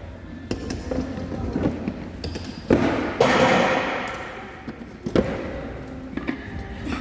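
Gym equipment being set down or dropped during a CrossFit workout: a few loud thuds and clanks, the strongest near the middle and one about five seconds in, each followed by a ringing echo.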